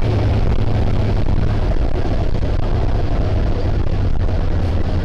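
Steady in-cab noise of a semi-truck driving at highway speed: a low engine drone with road and wind noise, unchanging throughout.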